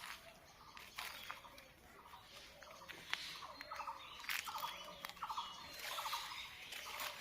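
Animal calls: short, rapidly pulsed trills repeating every half second or so, mixed with scattered sharp clicks.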